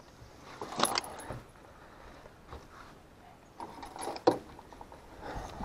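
Short metallic jingling and knocks from a landing net and fishing tackle against a boat deck, in two main bursts, about a second in and about four seconds in, with a few fainter ticks between.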